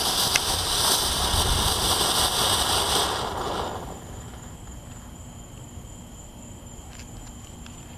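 Dollar-store fountain firework spraying sparks with a loud, steady hiss that fades and stops about three to four seconds in, as the fountain burns out.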